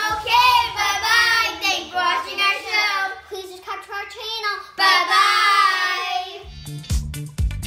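Young girls singing a short melody together, with a brief break about five seconds in. Near the end the singing stops and music with a steady beat starts.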